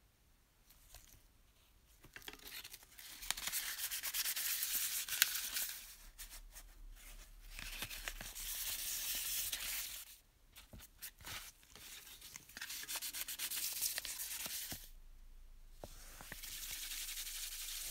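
Hand sanding a thin tin-plate sheet with fine-grit sandpaper: about four bouts of quick back-and-forth rubbing strokes with short pauses between them.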